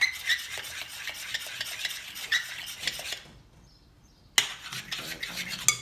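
Spoon stirring and scraping a sticky glue-and-shaving-foam slime mix in a pot, with quick scrapes and clicks. It pauses about three seconds in, then resumes with a sharp knock of the spoon against the pot.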